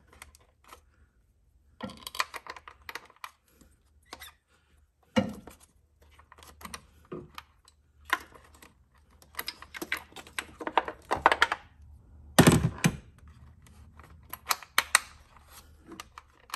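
Scattered light clicks, taps and rattles of hard plastic and metal as ignition coils are seated over the spark plugs and their small retaining screws are lined up and started by hand. A louder clatter comes about twelve seconds in.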